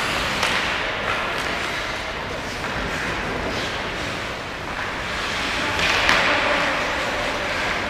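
Ice hockey skates scraping across the ice in swells, with a few sharp knocks of sticks and puck.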